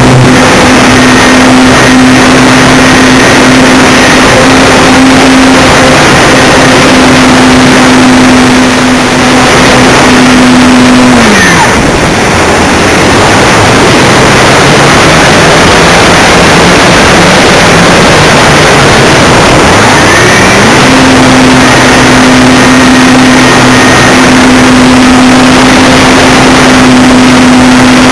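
Radio-controlled model airplane's engine and propeller, heard close from an onboard camera with heavy wind rush, running at a steady high pitch. About eleven seconds in the throttle is pulled back and the pitch drops; near twenty-one seconds it climbs back to the same steady high pitch.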